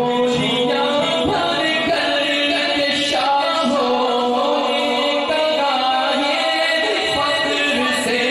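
A man singing a manqabat, an Urdu devotional poem, into a microphone in long, drawn-out melodic phrases.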